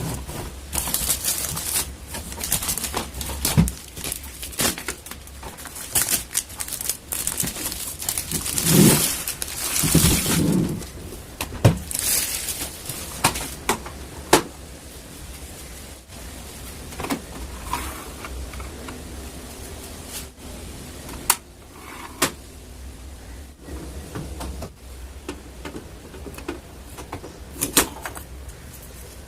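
Hands handling the HP 1112 printer and its packaging: irregular clicks, knocks and rustling of plastic and cardboard, busiest in the first half and sparser later.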